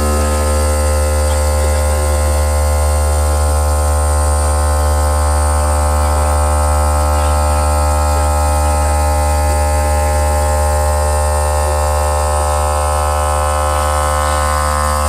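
CNC stone machine's spindle motor running at a steady speed: a loud, even electric hum with a high whine above it.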